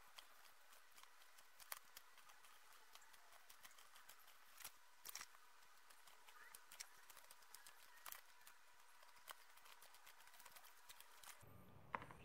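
Faint scratching and scattered clicks of a craft knife blade scoring circles through a paper template into a plastic box, over a faint steady whine. A sharper click comes near the end.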